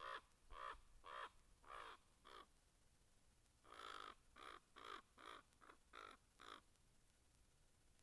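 A corvid giving a series of caws: five calls, a pause of about a second, then one longer call followed by about six quicker ones.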